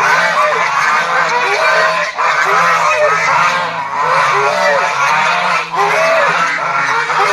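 A flock of domestic geese honking, with many short calls overlapping one another without a break.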